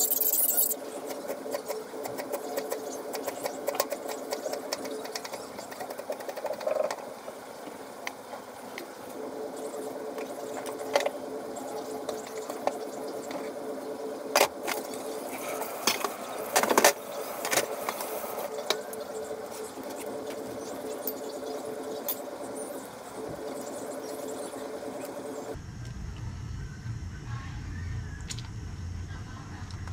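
A steady mechanical hum with a few sharp clicks; about three quarters of the way in, the hum gives way to a deep low rumble.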